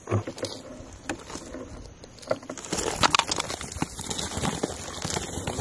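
Irregular crunching and clicking of feet on a gravel path, with a sheep's hooves and the wheels of its wheelchair among them. It grows louder and busier about halfway through.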